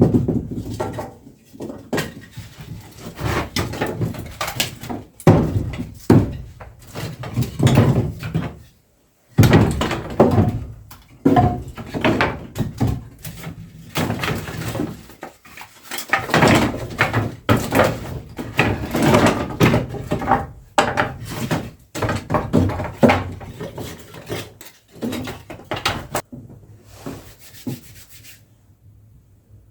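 Close, busy handling noise: irregular knocks, thuds and rubbing, as of wooden things being moved and set down, stopping shortly before the end.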